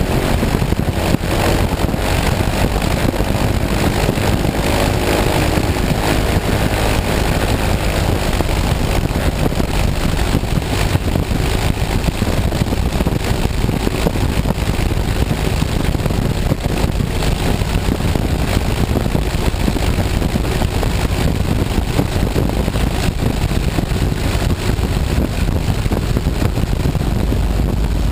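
Open-cockpit biplane's engine and propeller running steadily at low power as the plane taxis, loud and unchanging.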